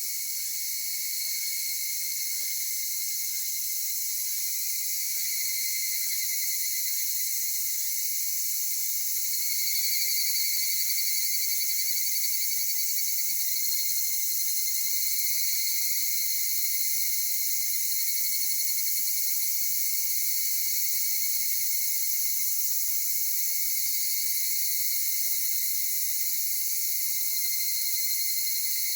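A dense chorus of singing insects in several steady high-pitched layers. A pulsing trill swells about a third of the way in and again near the end.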